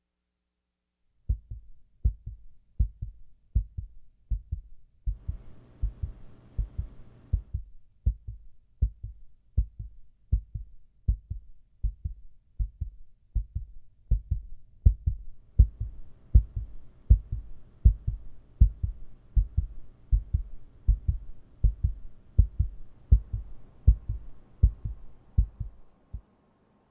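A heartbeat sound effect: steady low lub-dub thumps, a little faster than one beat a second, that stop suddenly near the end.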